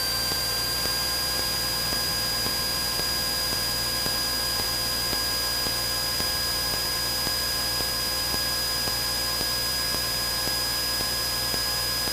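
Cessna 172N's four-cylinder Lycoming engine and propeller at full takeoff power, a steady drone with thin high whines over it, heard through the cockpit intercom as the plane rolls down the runway and lifts off.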